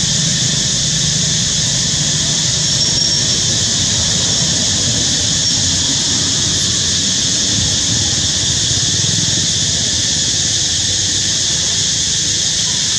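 Steady outdoor background noise, a continuous high hiss over a low rumble, with no distinct events.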